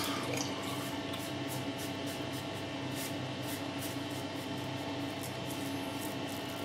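Fatip Piccolo open-comb safety razor scraping through three days' stubble on the neck in short, repeated strokes, over a steady low hum.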